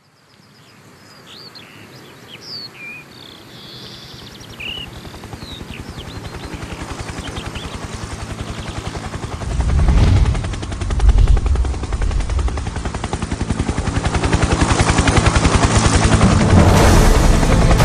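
A few bird chirps at first, then a helicopter's rotor chop that grows steadily louder as it approaches.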